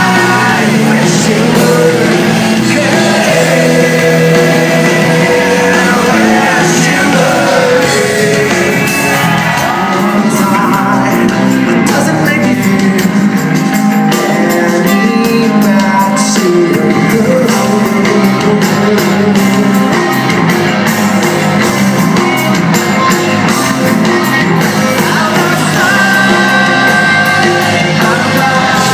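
Rock band playing live, loud and continuous: a male singer singing over electric guitar, drums and keyboards, heard from the audience in a large concert hall.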